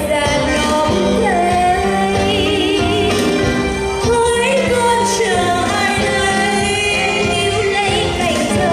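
A sung song: a vocal line with wavering vibrato held over a steady instrumental accompaniment.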